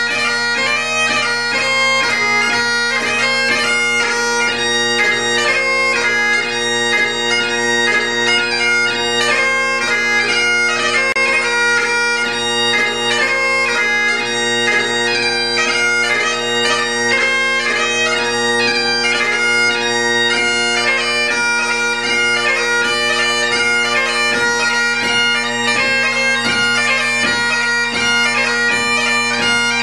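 Great Highland bagpipe played solo: the drones sound steadily under a quick chanter melody of short notes broken by rapid gracenotes, a light-music tune (march, strathspey or reel).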